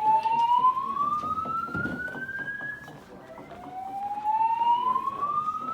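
EST-3 voice-evacuation fire alarm speakers sounding the slow whoop evacuation tone: a loud tone that glides steadily upward in pitch, breaks off about three seconds in and starts again low to rise once more.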